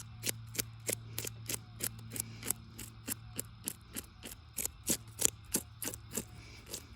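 A Mora knife scraping scales off a crappie in quick, even strokes, about three a second.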